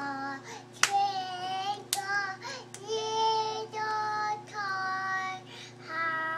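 A young girl singing in long, drawn-out notes, with two sharp clicks about one and two seconds in.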